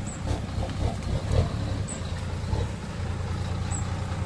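Mitsubishi Fuso dump truck's diesel engine running at low revs as the loaded truck creeps along a dirt track, a steady low rumble.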